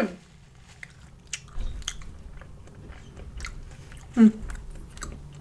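Close-up chewing and biting, with scattered soft crunches and wet mouth clicks, and a short throat sound about four seconds in.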